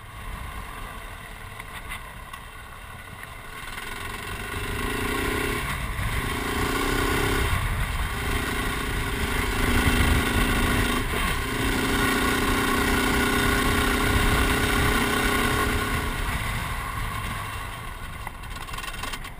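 Dual-sport motorcycle engine running under way on a dirt road, heard from on the bike, with short breaks in the note at gear changes about six and eight seconds in. It gets louder as the bike picks up speed and eases off near the end.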